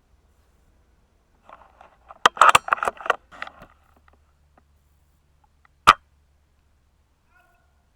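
Silverback SRS A1 bolt-action spring airsoft rifle being handled and fired close to the mic: a run of sharp mechanical clicks and clacks about two to three and a half seconds in, then a single sharp snap about six seconds in.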